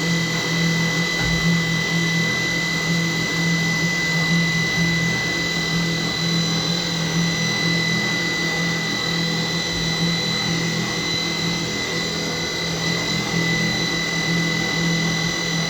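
CNC machining center running, a steady high whine over a pulsing low hum, as it mills a hexagon.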